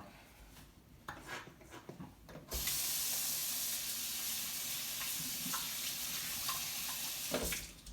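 Kitchen sink tap turned on about two and a half seconds in and running steadily while hands are washed under it, then shut off near the end. A few light knocks come before the water starts.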